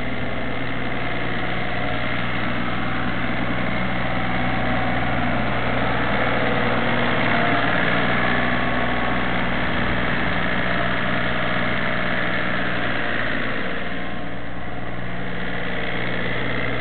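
Compact tractor engine running steadily as it pulls a laser grading box across a gravel pad, getting louder as it passes close by about midway and easing off as it moves away.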